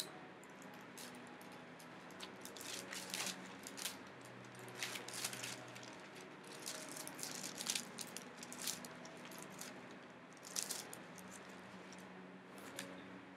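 Irregular rustles and clicks of pages being leafed through to find a passage, over faint sustained background music.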